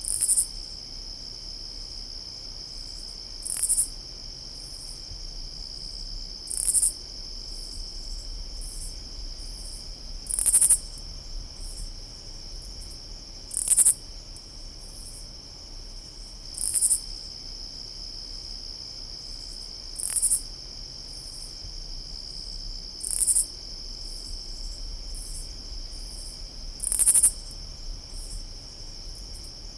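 A single katydid calling over a steady chorus of crickets trilling. The katydid gives short, loud, very high rasping calls about every three to four seconds, with fainter calls between them, while the crickets' high trill runs unbroken beneath.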